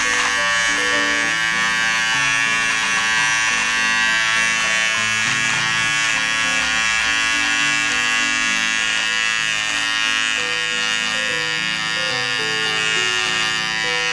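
GSE GS-007 cordless hair clipper running with a steady buzz as its blade trims moustache stubble.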